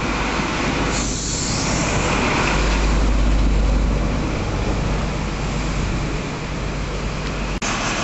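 High Speed Train passing close by: Mark 3 coach wheels rolling over the rails, then the Class 43 power car's diesel engine going past, loudest about three seconds in. The sound breaks off abruptly near the end.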